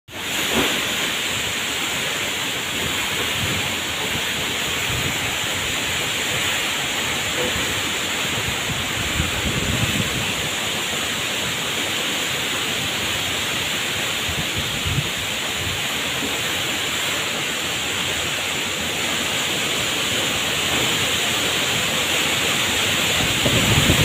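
Heavy tropical rainstorm: rain pouring down in a steady hiss as strong wind whips through palm trees, with low gusts of wind swelling now and then.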